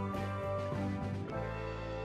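Background music: notes struck in quick succession, then a chord held from about a second in and slowly fading.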